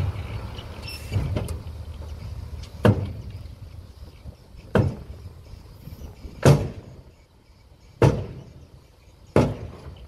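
A heavy machine's engine running with a low, steady drone, broken by six loud knocks spaced roughly one and a half to two seconds apart.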